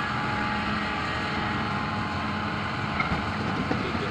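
Hitachi 310 hydraulic excavator's diesel engine running steadily under load as it swings a loaded rock bucket over a dump truck. A few sharp knocks come near the end.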